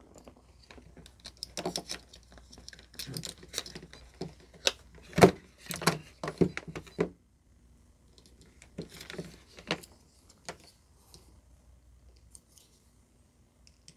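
Handling noise of an LCR meter's test leads and Kelvin clips being unplugged, moved and clipped onto a capacitor's terminals: a run of clicks and knocks, the loudest about five seconds in, then a few more around nine to ten seconds.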